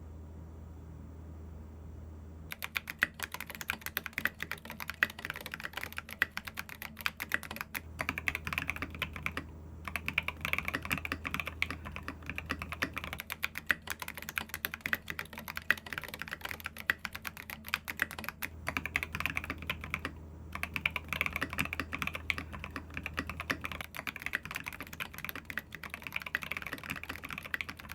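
Fast, continuous typing on a RAMA U80-A mechanical keyboard with a brass plate, SA-profile keycaps and lubed Tangerines V2 linear switches. The typing starts about two seconds in and pauses briefly twice.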